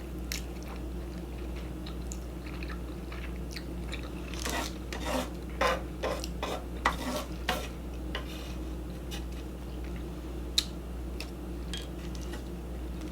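Close-miked eating of shrimp and ramen: chewing, with a run of short wet mouth smacks about halfway through and a few light clicks, over a steady low hum.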